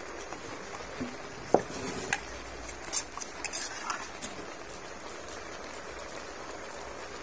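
Large aluminium pot of sliced bamboo shoots boiling hard, a steady bubbling hiss, with a few light clinks and taps in the first half, the loudest a short ringing ping about one and a half seconds in.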